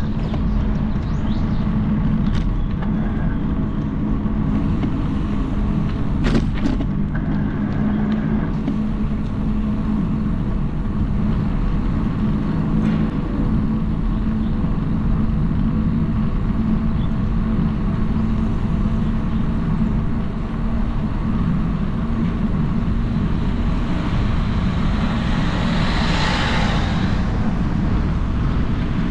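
Steady low road-vehicle rumble, with a brief sharp click about six seconds in and a swelling hiss a few seconds before the end.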